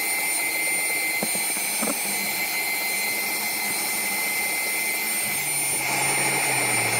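Wet and dry vacuum cleaner running steadily with a high whine, its crevice nozzle sucking baking soda out of van carpet. About five and a half seconds in, a low hum joins and the sound grows slightly fuller as the nozzle is pushed into the carpet pile.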